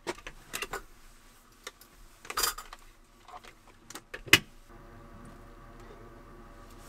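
Dishes and utensils being handled after a meal, heard as scattered light clinks and knocks with one sharp click about four seconds in. A faint steady hum sets in shortly after that.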